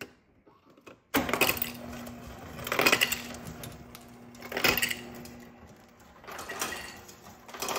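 Refrigerator door ice dispenser running: a steady motor hum starts about a second in and runs past the middle, under ice cubes dropping and clattering into a container in several louder rattling surges.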